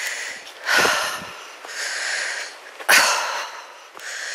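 A walker's laboured breathing close to the microphone while climbing a hill on foot: several noisy breaths in and out, with a sharper puff about three seconds in.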